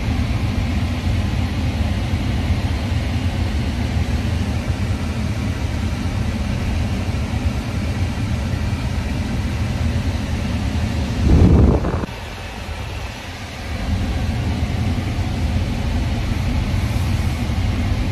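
Steady low road rumble inside the cabin of a moving car. Just after eleven seconds in it swells into a louder rush for under a second, then drops quieter for a couple of seconds before settling back.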